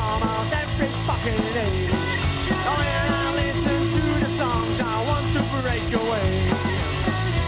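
A punk rock song plays at a steady, loud level from a full band.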